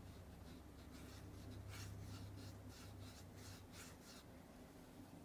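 Faint swishing of a watercolour brush stroking across paper, several short strokes in a row in the middle, over a low steady hum.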